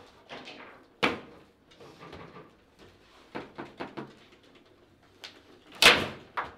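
Table football in play: the ball knocked by the plastic figures and rods and striking the table, a run of sharp knocks and clicks, with a cluster in the middle and the loudest hit near the end.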